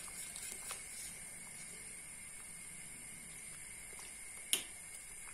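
Wire whisk stirring thick, flour-thickened chicken soup in a stainless steel pot: faint wet stirring over a steady hiss, a few soft taps in the first second, and one sharp clink of the whisk against the pot about four and a half seconds in.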